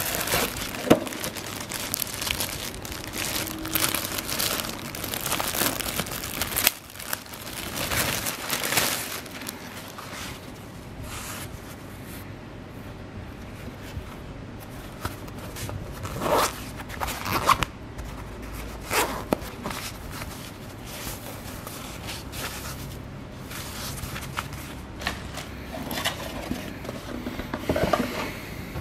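Plastic packaging bag crinkling and rustling as it is handled, dense for about the first ten seconds, then fabric rubbing with scattered sharper rustles.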